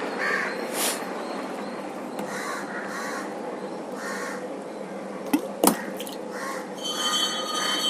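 Steady hiss of aquarium water being siphoned out through a tube, with crows cawing again and again over it. Two sharp knocks come about five and a half seconds in.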